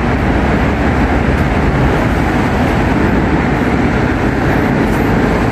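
Steady rush of road traffic passing below, an even wash of noise with a constant low rumble and no distinct single vehicle standing out.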